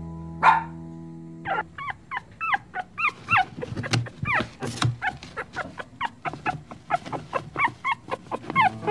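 Puppies whimpering and yipping: a rapid, uneven string of short, high, squealing cries that starts about a second and a half in, after a single sharper yelp.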